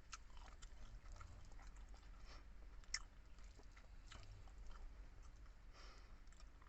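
Close-miked chewing of a mouthful of sinigang na baboy: faint, scattered wet mouth clicks and smacks, with one sharper click about three seconds in.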